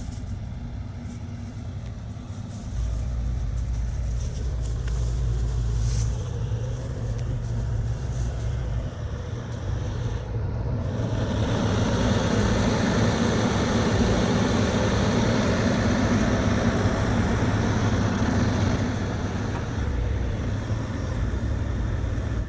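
Diesel engine running steadily. About eleven seconds in it grows louder and fuller, as if revved or under load, for roughly eight seconds, then settles back.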